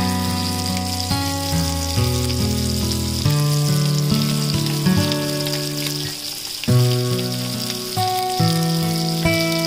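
Spiced oil sizzling steadily as scored hard-boiled eggs fry on high flame, under background music of held notes that change about once a second.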